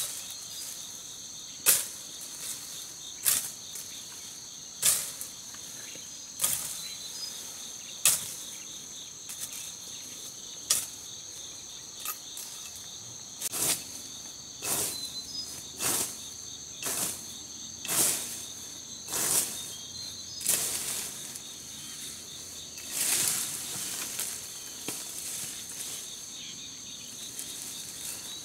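A blade chopping through thin branches and brush, a sharp stroke about every one and a half seconds at first, then quicker, uneven cuts with leaves rustling. A steady high insect chorus drones underneath.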